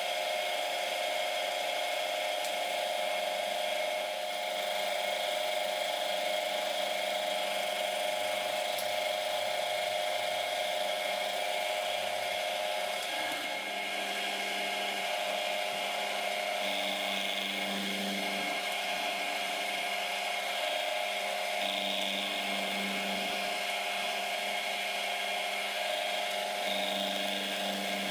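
Manual milling machine running steadily as its end mill side-cuts a flat for the tang on a 4140 steel Morse taper arbor, a steady machine whine of several tones. In the second half a lower tone swells for a second or so about every five seconds.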